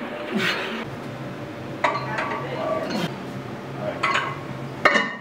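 Iron weight plates clinking and clanking against the steel sleeve of a plate-loaded gym machine as they are slid on, in about five sharp metallic strikes roughly a second apart. The sharpest strike comes near the end.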